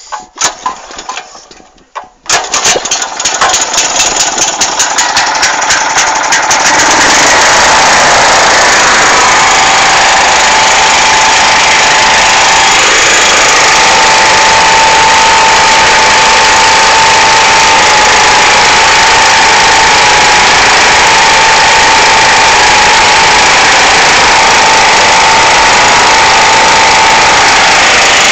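Honda-engined three-phase portable generator starting. The engine catches about two seconds in and picks up speed over the next few seconds, its firing strokes coming faster and faster. It then runs loud and steady at constant speed with a steady whine above the engine noise.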